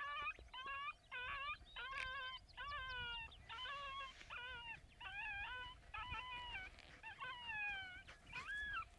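Coyote yips and whimpers, a run of short high cries about two a second, most falling in pitch.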